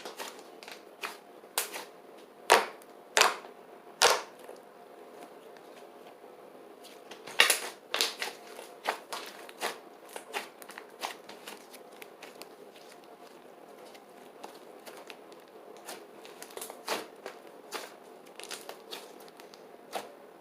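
Clay slime (glue slime with Model Magic clay worked in) being squeezed and pressed by hand for ASMR, giving irregular sharp clicks and pops. The loudest pops come in a cluster about two to four seconds in and again around seven seconds, with lighter clicking throughout.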